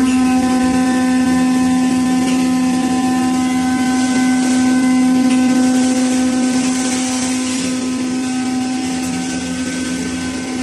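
Hydraulic power unit of a Y81K 500-ton scrap metal baler running at speed: a steady, unchanging hum of the pump and its electric motor.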